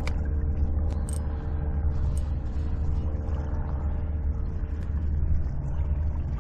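Steady low motor hum, with a few sharp clicks in the first couple of seconds.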